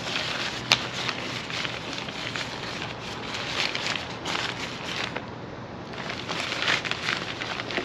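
Tank bag rain cover rustling and crinkling as it is unfolded by hand, with one sharp click about a second in.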